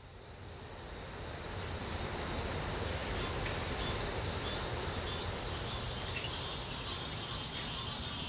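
Night-time insect chorus, a steady high-pitched shrilling in two pitch bands, fading in over the first couple of seconds.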